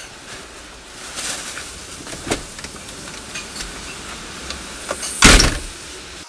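Steady hiss of heavy rain from a tropical storm, heard through a window, with a sharp tap about two seconds in and a loud thump close by about five seconds in.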